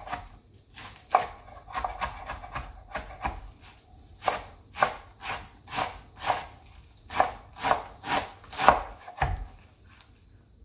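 Chef's knife chopping a folded bundle of callaloo leaves on a wooden cutting board, each stroke a sharp knock on the board. The strokes are quicker and lighter at first, then steady and louder at about two a second, and they stop near the end.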